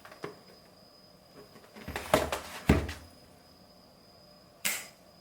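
Product packaging being handled by hand: a light click at the start, then a cluster of knocks and rustling about two seconds in with two sharper knocks, and a short rustling swipe near the end. A faint steady high whine sits underneath.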